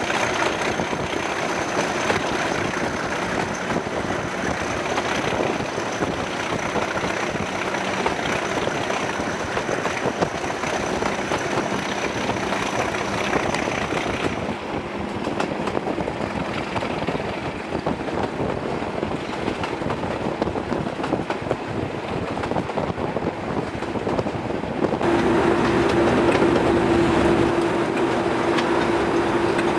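British Rail Class 37 diesel locomotive 37219 working hard under power ('thrash'), heard from the open window of the coach just behind, with its English Electric V12 engine and the train's wheels running on the rails. A thin high steady whistle sits over the first half. About 25 s in, the sound turns louder, with a strong steady droning note.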